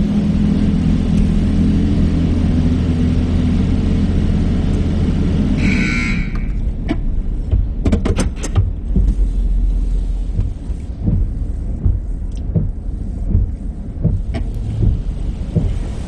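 Steady low machine hum heard from inside a vehicle's cabin in an automatic car wash bay, stopping about six seconds in just after a short high tone. After that, scattered low thumps and clicks.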